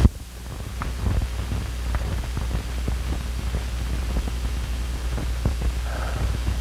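Background noise of an old optical film soundtrack: a steady low hum with scattered crackles and pops. It opens with a sharp pop as the level drops.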